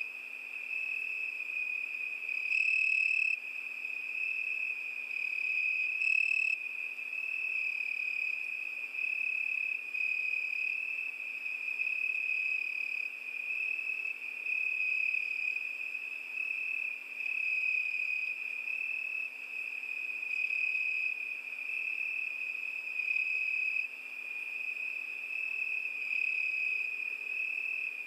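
Crickets singing at night: a continuous high-pitched trill that swells and fades every couple of seconds.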